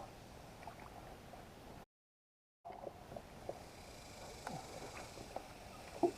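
Faint background hiss with scattered light clicks and knocks, broken by a moment of dead silence about two seconds in where the recording is cut. A slightly louder knock comes near the end.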